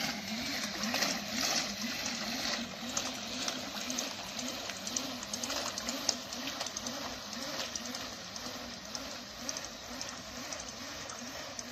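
Pedal-driven propeller on a bicycle-powered canoe, churning the water with a whirring tone that rises and falls in pitch about two to three times a second with the pedal strokes, growing slowly fainter as the boat moves off.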